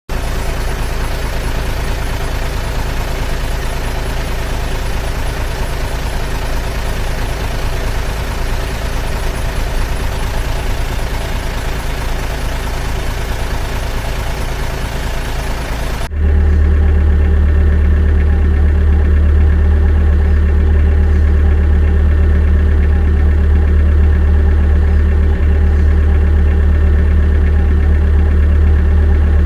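Steady engine-style running and idling drone from scale RC construction machines. About 16 s in it switches abruptly to a louder, lower, very even hum.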